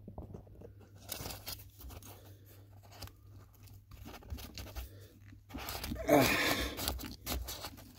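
Half-inch copper pipe being worked into a SharkBite push-to-connect fitting: scattered clicks and scrapes of metal on plastic and metal, with a louder, rougher scrape about six seconds in as the pipe is pushed home deep into the fitting.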